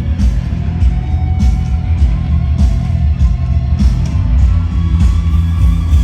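Live pop-rock band music, amplified: guitar over heavy bass with a steady beat.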